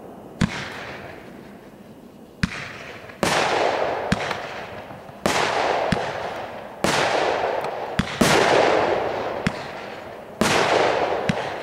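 Aerial firework shells fired one after another: about seven sharp short bangs, and five louder bursts of rushing noise that each fade away over a second or two.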